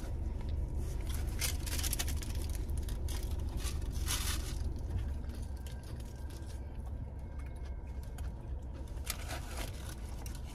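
Paper food wrappers and ketchup packets being handled: rustling and crinkling with scattered short clicks and crackles, a louder rustle about four seconds in, over a steady low hum.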